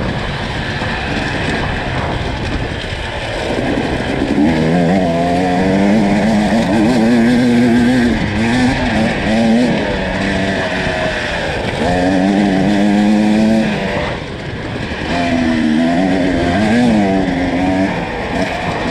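Enduro dirt bike engine under constantly changing throttle, its pitch wavering up and down, dropping off twice and then climbing again as it revs back up.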